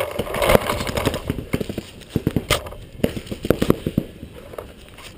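Irregular knocks and thumps from a paintball player on the move over dry grass, with footsteps and gear jostling the marker-mounted camera; the sharpest knocks come at the very start and again a few seconds in.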